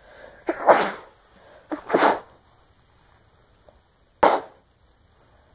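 A woman sneezing. A short breath in comes first, then two sneezes about a second and a half apart, and a third, sharper sneeze about four seconds in.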